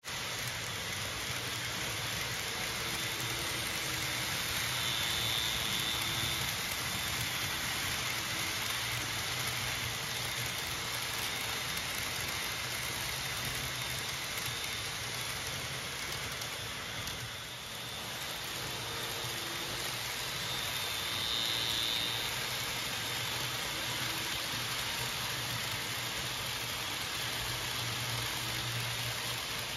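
N-scale model electric trains running on a layout: a steady hiss of small wheels on the rails with a low motor hum, a faint high whine rising twice, and a brief dip partway through.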